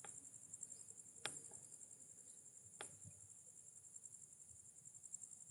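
Faint, steady high-pitched chirring of a night-insect chorus. Two faint clicks come about a second in and near three seconds in.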